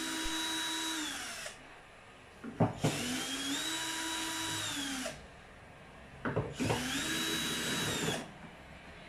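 Cordless drill-driver backing screws out of a washing machine's plastic base, with three runs of a couple of seconds each. Each run is a steady motor whine that falls away as it winds down, with clicks before the second and third as the bit is set into the next screw.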